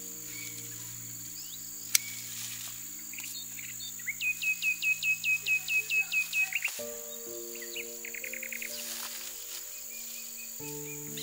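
Small birds chirping: a fast run of about a dozen short, sharp chirps a few seconds in, then a quick trill, over soft background music of sustained chords that change twice. A single sharp click about two seconds in.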